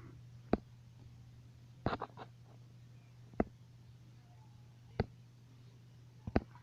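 Plastic Schleich toy horse figurines tapped and set down on a hard surface: a handful of sharp, irregular clicks and knocks, a quick group of three about two seconds in. A low steady hum runs underneath.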